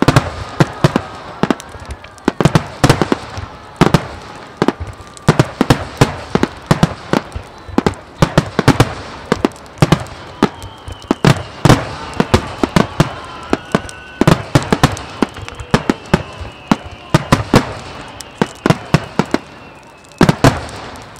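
Aerial fireworks bursting in rapid, continuous volleys of sharp bangs, with a short lull near the end before a last cluster.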